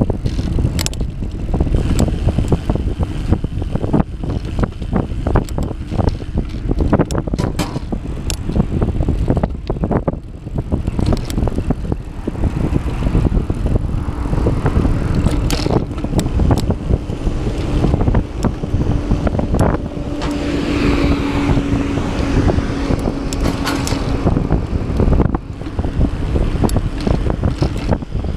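Wind buffeting the microphone of a handlebar-mounted camera on a moving bicycle, a constant loud rumble, with frequent sharp rattling clicks as the bike rolls over bumps in the path. A steady hum joins in the middle for several seconds.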